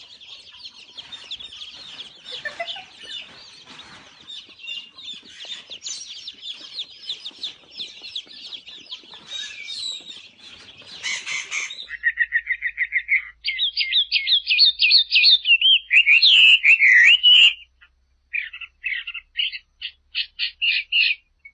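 Birds calling: a dense chorus of high chirps for the first half, then, after a sudden change, loud, quick trills repeated with short pauses between them.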